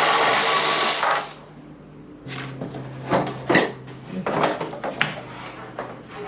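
A loud rushing noise of about a second and a half, then irregular plastic clicks and scrapes as a car's side indicator lamp is worked out of the front guard, over a steady low hum.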